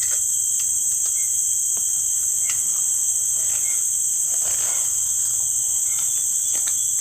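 Chorus of insects trilling steadily at a high pitch, unbroken throughout, with a few faint ticks scattered through it.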